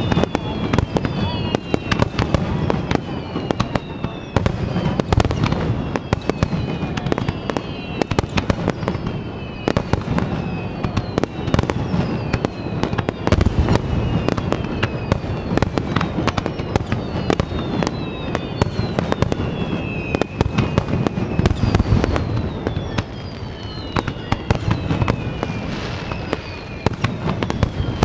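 Fireworks display in full barrage: a dense run of bangs and crackles with occasional deep booms, overlaid by many high whistles that fall in pitch as the shells go up and burst.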